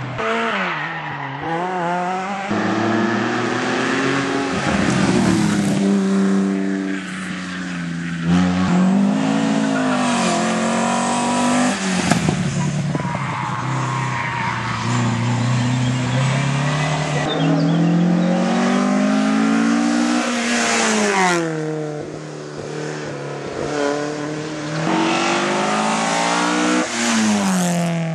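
Hillclimb race car engines revving hard, the pitch climbing and dropping repeatedly with each gear change and lift as the cars accelerate up the hill and slow for the bends.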